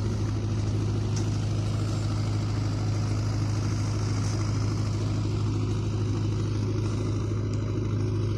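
Engine idling with a steady low hum that neither rises nor falls.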